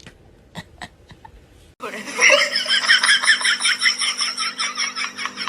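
Laughter: a fast, unbroken run of ha-ha pulses that starts abruptly about two seconds in, over a steady hum.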